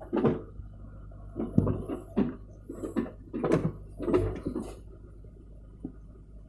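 Case 580 backhoe loader working, its engine running low beneath a string of irregular knocks and clunks about every half second that fade out near the end.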